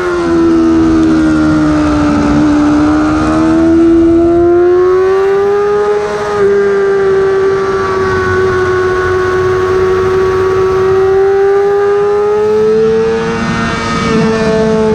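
Yamaha R6's 600 cc inline-four engine heard onboard at racing speed over wind noise. The engine pitch dips in the first two seconds, climbs, then holds fairly steady through a long corner, with a brief dip near the end.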